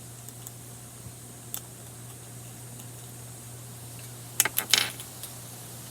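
Plastic Rubik's cube being turned after it has been loosened: a few faint clicks, then a quick flurry of loud clacking layer turns about four and a half seconds in. A steady low hum runs underneath.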